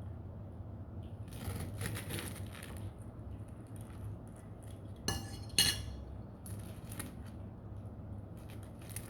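Tableware clinking: soft scrapes and rustles, then two sharp ringing clinks about five seconds in, the second one the loudest, like cutlery against a plate.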